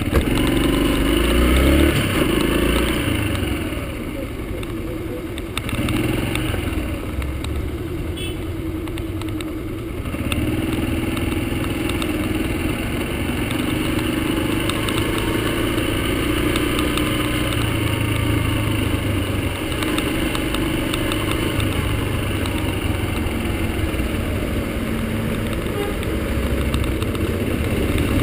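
Yamaha XTZ125's single-cylinder four-stroke engine running as the bike rides through slow city traffic, rising and falling in pitch over the first ten seconds, then pulling more steadily.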